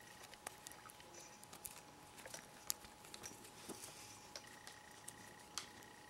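Faint, scattered clicks and rustles of nylon paracord being handled and tightened through a plastic buckle clip.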